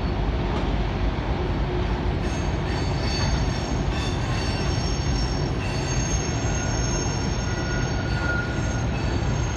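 Freight train rolling round a sharp curve: a steady low rumble of the cars, with thin, high steel-wheel flange squeal coming and going over it.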